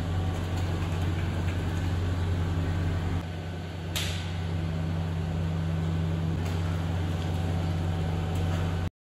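Steady low electric hum from the motor of a stainless steel mixing tank running. The hum drops a little about three seconds in, a short sharp crackle follows a second later, and the sound cuts off abruptly just before the end.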